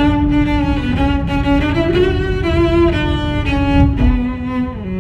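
Background music: a melody of held notes that step up and down in pitch, over a steady low rumble.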